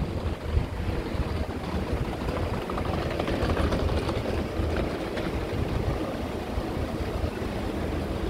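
City street ambience: a steady low rumble of traffic with wind buffeting the microphone.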